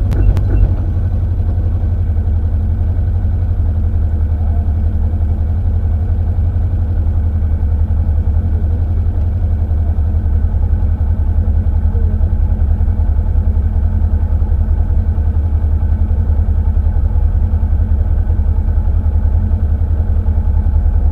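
Peugeot 106 Rallye rally car's engine idling steadily, heard from inside the cabin, with a brief click just after the start.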